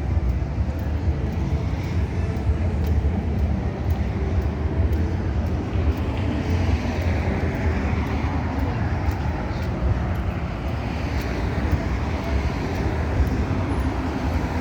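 Busy street traffic: a steady low rumble of passing vehicles, with vehicles swelling past in the middle and again near the end.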